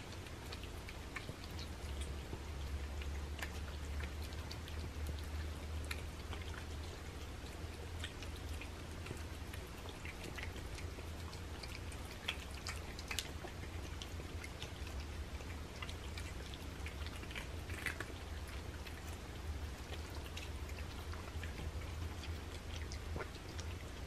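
Several cats eating homemade raw food from plates: scattered small wet chewing and licking clicks over a low steady hum.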